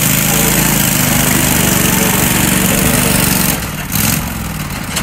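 Modified off-road Murray riding mower engine running hard as the rear tyres spin on the wooden planks in a burnout. The engine note drops about three and a half seconds in, picks up briefly, then drops again.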